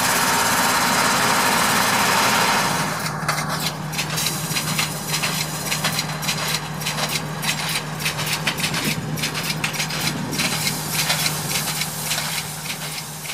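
Engine of a converted Agrifac ZA-215 beet harvester running steadily under load. After about three seconds, rapid irregular clicking and clattering from the 12-row Ferrari Futura automatic planter's units sets in over the steady engine hum.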